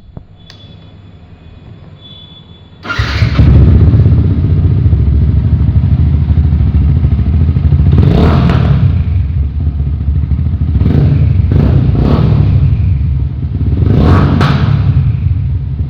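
Yamaha R15 v2's single-cylinder engine running through an aftermarket full-system exhaust. It comes in suddenly about three seconds in, then idles steadily with several short throttle blips.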